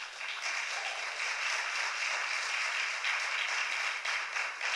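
Church congregation applauding, many hands clapping, starting suddenly and holding steady.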